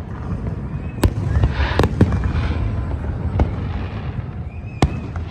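Fireworks bursting overhead: five sharp bangs at uneven spacing, with crackling after the bursts around the middle, over a steady low rumble.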